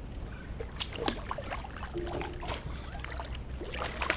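A big fish being landed with a net beside a small fishing boat: water splashing and dripping, with scattered knocks and rattles from gear and the boat over a low steady rumble.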